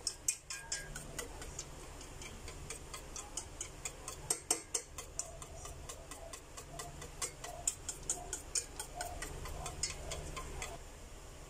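Wire whisk beating thick chocolate pancake batter in a stainless steel pot, its metal wires clicking against the pot about three or four times a second, with a soft wet stirring sound between clicks. The clicking stops about a second before the end.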